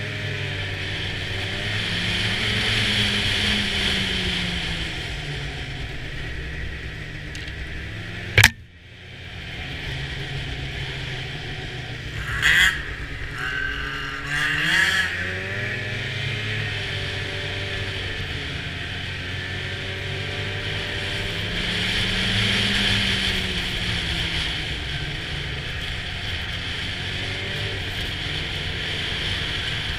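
Snowmobile engine heard from the rider's helmet, its pitch rising and falling as the throttle is worked along the trail. A sharp knock comes about eight seconds in, the engine dropping away briefly after it, and two short louder bursts follow a few seconds later.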